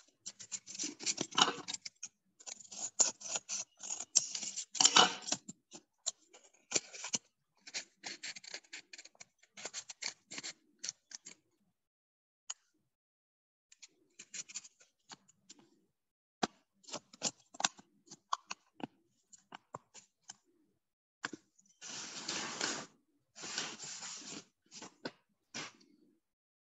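Scissors snipping through chart paper in short irregular runs of cuts, with dead silence between the runs. Near the end come two longer stretches of steady paper noise, each about a second.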